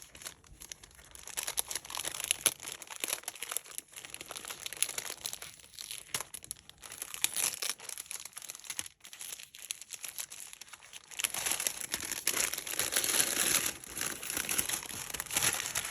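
Tissue paper and wrapping paper crinkling and rustling as a package is unwrapped by hand, growing louder and busier about two-thirds of the way through.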